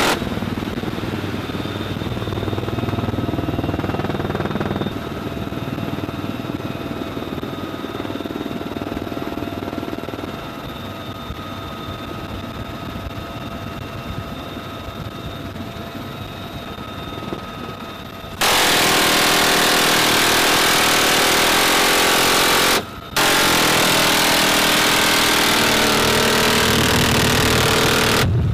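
UH-1Y Venom helicopter running in flight, heard from the open cabin: the twin turboshaft engines whine steadily over the rotor noise. About two-thirds of the way in, a sudden much louder, even roar takes over for about ten seconds, cutting out briefly once partway through.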